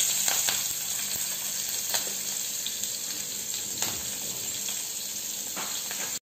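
Oil sizzling in a pan as chopped green chillies fry with mustard seeds and urad dal in a tempering, with a few faint crackles.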